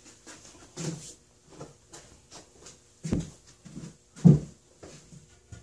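Footsteps and handling bumps as a person moves about a garage: a run of irregular thuds and knocks, the two loudest about three seconds and about four seconds in.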